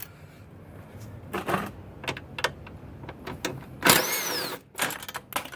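Hand tools and metal parts being worked on a car's front end: scattered sharp clicks and knocks, with a louder scrape and a short falling squeal about four seconds in.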